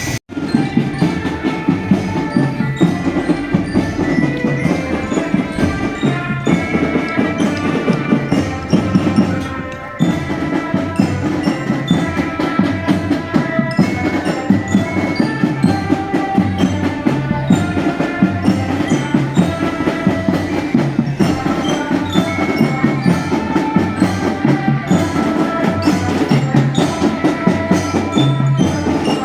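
Indonesian marching drum band playing: drums beating a steady, driving rhythm under a bright melody on metal mallet bells such as a bell lyre. The band drops briefly about ten seconds in.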